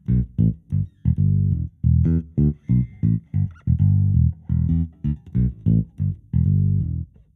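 Ample Sound P-Bass, a sampled Fender Precision Bass virtual instrument, playing a line of short plucked bass notes, several a second, with its tone EQ-matched to sound like a Jazz bass. The line stops shortly before the end.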